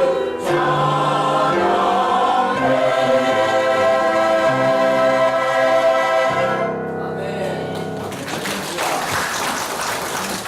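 Church choir singing the closing phrases of an anthem, the last chord held and dying away about six to seven seconds in. A rustling noise takes over for the final two seconds.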